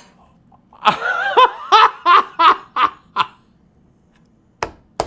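A man laughing in excited surprise, a run of about seven short bursts of laughter. Two sharp clicks follow near the end.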